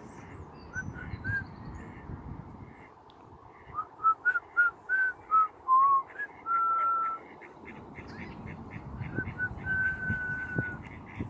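A person whistling clear single notes: a few short ones, then a louder quick run going up and down, and two long held notes, one just after the middle and one near the end.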